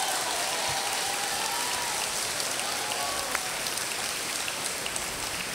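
A large audience applauding: the steady, even clatter of many hands clapping at once.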